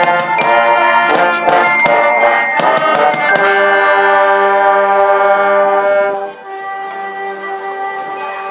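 Orchestral music: a run of short accented chords, then a long held chord that falls away about six seconds in, leaving quieter sustained notes.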